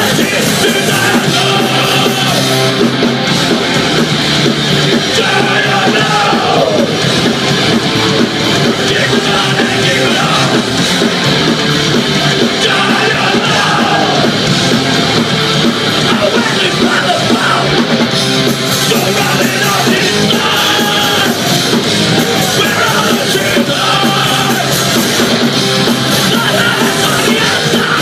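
Hardcore punk band playing live: distorted electric guitars, bass and drums at a steady high level, with shouted vocals over the top.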